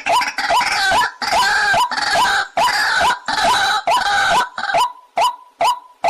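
White-breasted waterhen calling: short upward-hooked notes repeated a little over two a second, at first under harsh, rasping croaks. About five seconds in the rasping stops and only the clear, evenly spaced notes go on.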